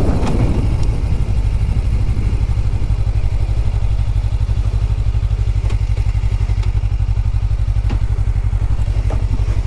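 Motorcycle engine running at low speed as the bike rolls slowly, a steady low throb of rapid, even firing pulses heard from the bike-mounted camera.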